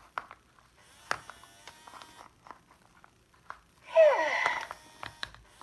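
Play-Doh and its plastic tub and tools being handled on a table: light clicks and taps. About four seconds in comes a loud, short squeak that slides down in pitch.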